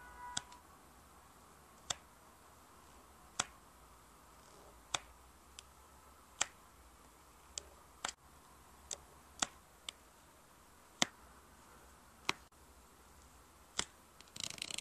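Sharp little clicks, about one a second at an uneven pace, as a diamond painting pen's metal multi-placer tip presses rows of resin drills onto the adhesive canvas. A brief rustle comes at the very end.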